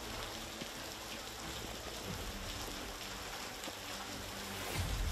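Heavy hurricane rain pouring onto a paved street: a steady, even hiss. A low rumble swells near the end.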